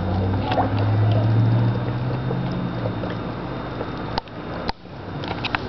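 Small aquarium filter running: a steady low hum over a haze of moving water, with a few light clicks. The hum is strongest in the first couple of seconds.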